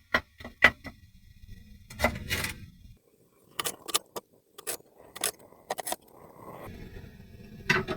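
Knife chopping tenderstem broccoli on a chopping board: a string of sharp, irregular knocks.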